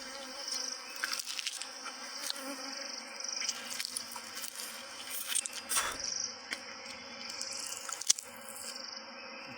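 Insects buzzing around the broken wild honeycomb, a high hum that comes and goes, with scattered small clicks and one sharp knock about eight seconds in.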